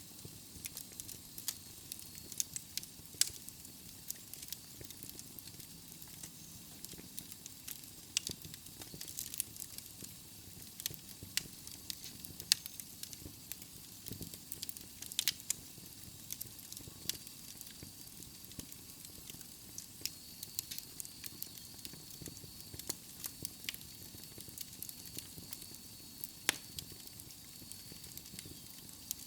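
Wood logs burning in a fireplace, crackling with frequent sharp, irregular pops over a soft steady hiss.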